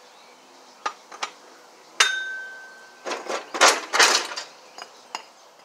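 Metal parts and tools being handled and set down on pavement: two light clicks, then a sharp metallic clink that rings for about a second, followed by a burst of clattering and scraping and a few last clicks.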